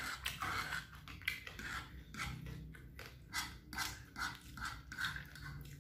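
Close-up mouth sounds of chewing crisp kerupuk (Indonesian fried crackers): a series of short crunches, about two to three a second.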